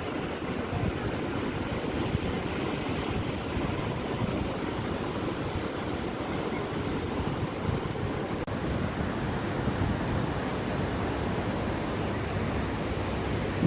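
Sea waves washing in on the shore, a steady rushing surf.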